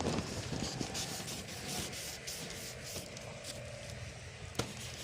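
Rustling, rubbing noise of a large kite being handled while its bridle strings are tied, with one sharp click about four and a half seconds in.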